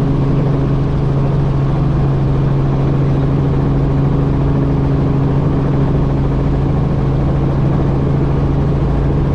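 Light helicopter's engine and main rotor running steadily, heard from inside the cabin: a loud, even drone with a strong low hum and a fainter tone above it.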